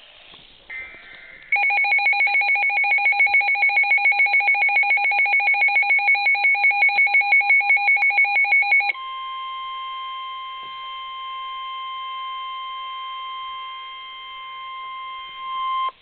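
Midland NOAA weather radio sounding a tornado-warning alert. It opens with rapid, loud, even beeping, about five beeps a second. About nine seconds in, this gives way to the broadcast's steady long warning-alarm tone, which cuts off sharply at the end, just before the warning is read out.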